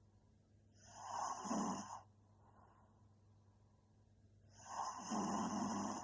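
A sleeping woman snoring: two snores about four seconds apart, each lasting a little over a second.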